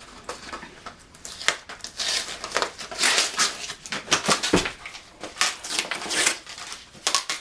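Packing material rustling and crinkling as it is handled and pulled out of a cardboard box, in a string of uneven crackles and scrapes with no steady rhythm.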